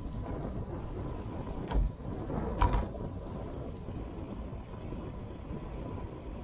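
Steady rumble of wind and road noise from a moving ride, with two sharp thumps a little under a second apart about two to three seconds in.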